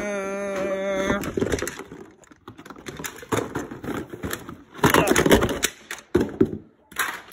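Hands handling toy packaging: cardboard and plastic rustling with irregular sharp clicks and knocks, busiest about five seconds in.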